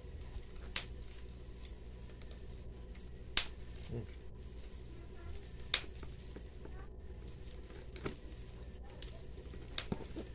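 Scissors snipping at the tape on a cardboard box: five sharp single clicks a couple of seconds apart, the loudest about a third of the way in, over a faint steady low hum.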